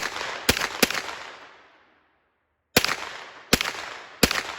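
Six gunshots from a firearm on an outdoor range, in two quick groups of three: three shots within about a second at the start, then a pause of nearly two seconds, then three more about three-quarters of a second apart. Each shot rings out and echoes, fading over a second or so.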